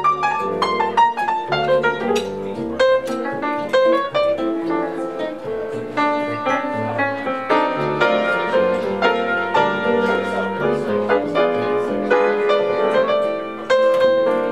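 Jazz trio playing live, with acoustic piano in front playing a flowing melodic line of separate notes over a bass line underneath.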